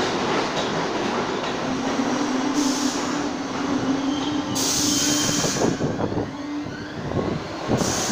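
New York City subway train pulling into the station and slowing to a stop, with wheels running on the rails, a steady hum through the middle, and a short burst of hiss about halfway through.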